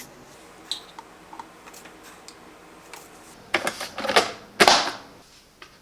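Handling noises at a plastic drip coffee maker while ground coffee is put into its filter: a few light clicks, then several short rustling, scraping sounds about three and a half to five seconds in.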